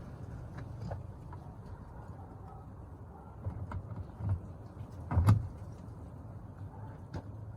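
Handling noises from fitting a car door speaker and its screws: scattered light clicks, a few knocks and one sharp knock about five seconds in, over a steady low outdoor rumble.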